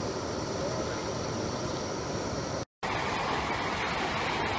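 Steady rushing of flowing floodwater. After a brief cut-out about two and a half seconds in, it gives way to the louder, steady rush of a large waterfall in flood.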